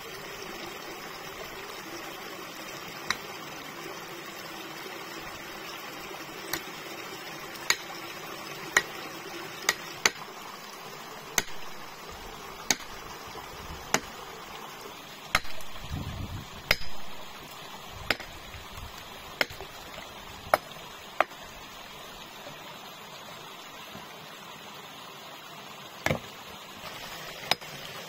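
Sharp knocks at irregular intervals, a second or more apart, with a few heavier thuds about halfway through, over a steady rush of running water.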